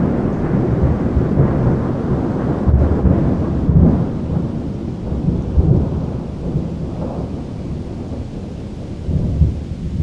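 Thunder rumbling low and rolling, slowly dying away, with a few louder swells in the rumble: around three to four seconds in, near six seconds, and just after nine seconds.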